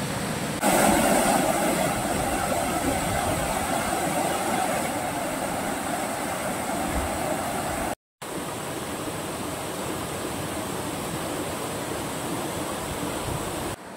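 Flowing river water making a steady rushing hiss, with a brief silent gap about eight seconds in.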